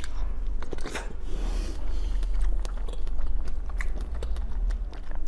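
Close-miked biting into and chewing a soft jelly ball, with many small wet clicks and smacks from the mouth and a hissing, slurping stretch about a second in. A steady low hum runs underneath.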